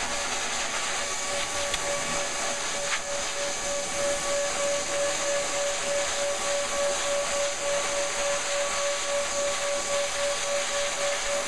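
Dog blow dryer running steadily, its nozzle blowing air into a Bernese Mountain Dog's thick coat: a constant rush of air over a steady motor whine.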